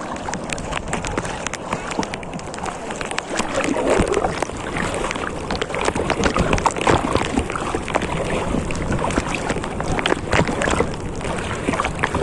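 Shallow seawater sloshing and splashing in irregular bursts, with wind buffeting the microphone.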